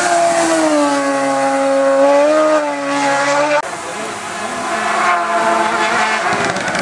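Hillclimb race car engine running hard, its pitch dipping and then rising again as it comes back onto the throttle. The sound changes abruptly about halfway through, and the engine pitch climbs again near the end.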